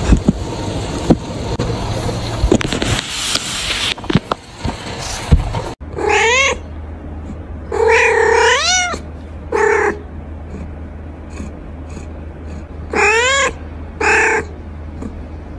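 A cat meowing five times in the second half, the longest call almost a second. Before that, rustling with scattered clicks.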